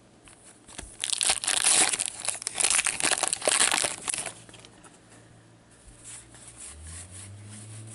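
A trading-card pack wrapper being torn open and crumpled, in dense crackling rustles for about three seconds, then dying down to quiet handling.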